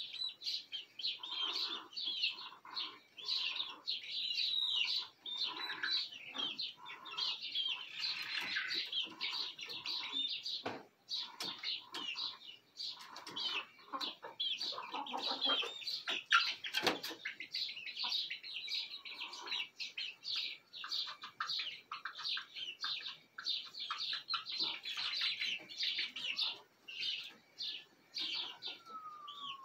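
Young chickens peeping and chirping steadily, many short high calls overlapping, mixed with softer low clucks as they settle on the roost for the night. A couple of sharp knocks come in the middle.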